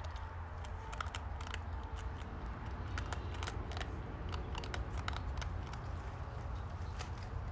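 North American porcupine chewing food close to the microphone: a quick, irregular run of crisp crunching clicks. A steady low rumble runs underneath.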